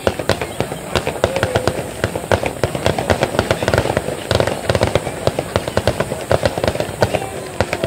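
Aerial fireworks going off in quick succession: a dense, unbroken run of sharp bangs and crackles, many a second.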